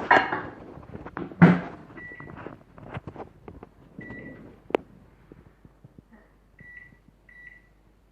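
Two loud clunks as the microwave oven is handled, then four short, high beeps from its keypad as the cooking time is set, spread over several seconds, with one sharp click between them.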